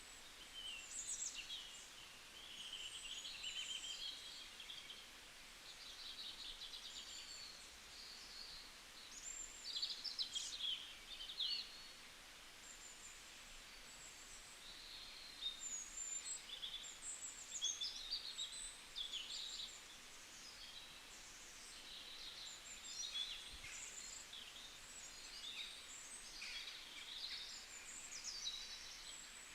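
Several songbirds chirping and singing, with overlapping short high calls and trills over a faint steady outdoor hiss, easing off briefly a little before the midpoint.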